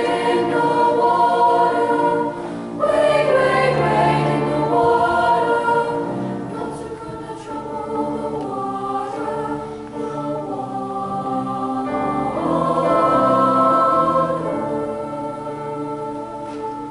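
School choir singing sustained chords, dipping briefly then coming back in strongly about three seconds in, swelling again past the middle and fading near the end.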